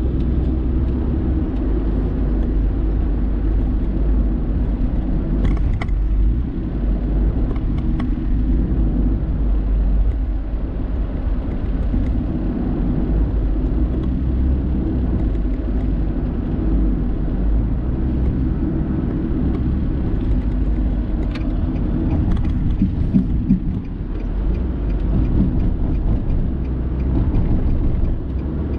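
Steady low rumble of a car driving at road speed, heard from inside the cabin: tyre and engine noise, with a few faint ticks here and there.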